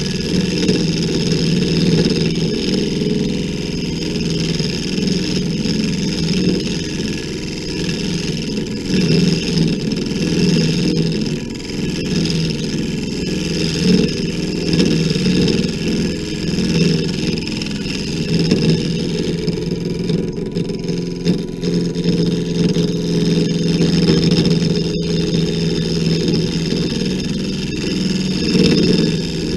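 WEN 3421 mini lathe running steadily with a motor whine, while a hand-held turning tool cuts into the spinning wood blank, giving an uneven scraping, cutting noise.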